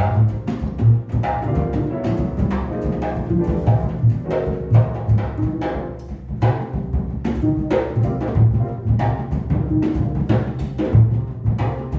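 Jazz piano trio playing: piano chords and runs over strong plucked bass notes, with drum kit and cymbal strokes throughout.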